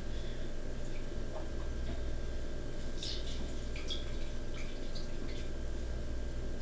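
A halved citrus fruit squeezed by hand over a glass: short, wet squelches and juice dripping into the glass, over a steady low hum.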